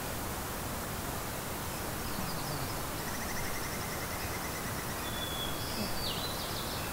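Steady outdoor hiss of mountain ambience. About three seconds in a small bird sings a rapid trill, followed by a few short chirps.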